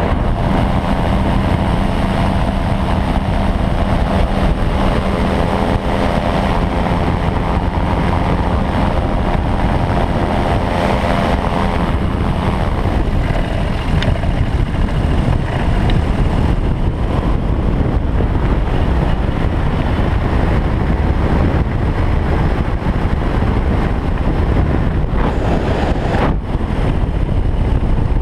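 Air rushing over a Bautek Skycruiser microlight trike as it glides with its engine shut off. Over the first twelve seconds or so a steady hum with several pitches sounds along with the airflow, then stops.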